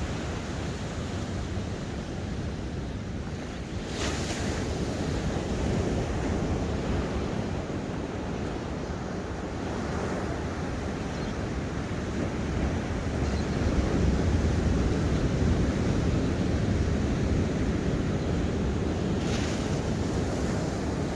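Ocean waves breaking and washing on the shore: a continuous rushing noise that swells about two-thirds of the way through, with a brief brighter hiss of surf about four seconds in and again near the end.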